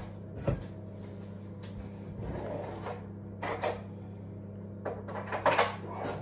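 Knocks and clatter of kitchen drawers and cupboards being opened and shut: one knock about half a second in, a pair past the middle, and a run of knocks and rattles near the end, over a steady low hum.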